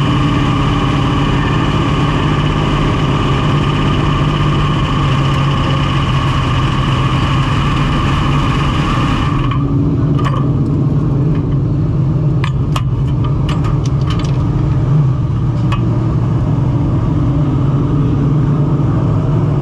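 Big-block V8 of a dirt modified race car idling steadily, heard from inside the open cockpit. About halfway through a hiss over the engine cuts off suddenly, then a run of sharp clicks sounds in the cockpit while the engine keeps idling.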